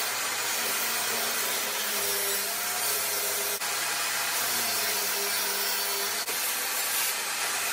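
Table saw and dust extractor running steadily, with a faint wavering tone at times as pallet-wood slats on a sled are cut.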